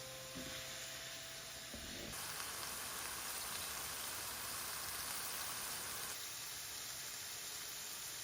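Food sizzling in a frying pan on the stove, a steady crackling hiss. Soft background music fades out about two seconds in.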